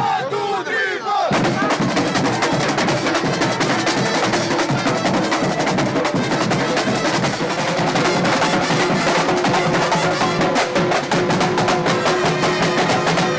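A marching band's drum section playing a fast, busy rhythm on snare drums and multi-tom tenor drums, many players at once.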